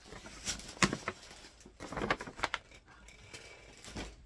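Gift bag and its contents rustling and crinkling as they are handled, in several short rustles.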